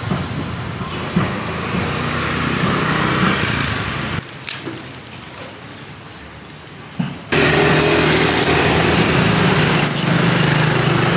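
Street traffic: motor vehicle engines running nearby, with a steady low hum that gets louder and stays even in the last few seconds.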